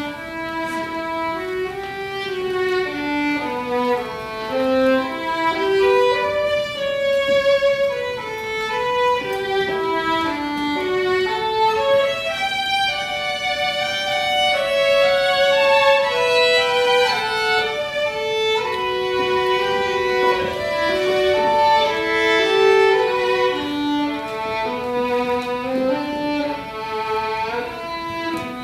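Solo violin playing a continuous melodic line of short notes that step up and down, with no other instruments.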